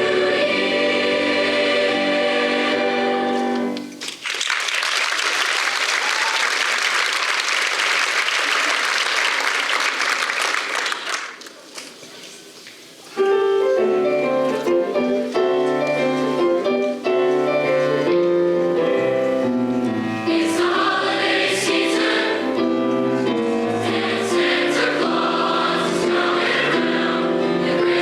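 High school choir singing the end of a song, which stops about four seconds in. The audience applauds for several seconds and the clapping dies away. Then the choir starts the next song about thirteen seconds in.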